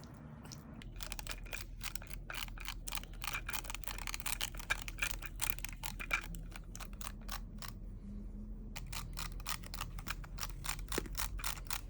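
A rapid run of sharp clicks, several a second, with a short break near the end.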